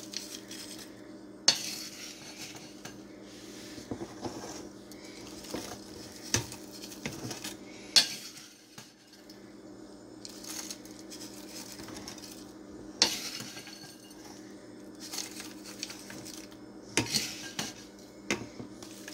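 Wooden spoon scooping crumbly butter brickle from a glass bowl and scattering it over a pie filling: a rustle of crumbs, with sharp knocks of the spoon against the bowl every few seconds.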